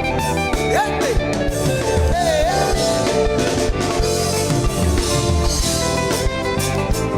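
Music with guitar and drums playing a steady beat, with a few sliding notes about one and two seconds in.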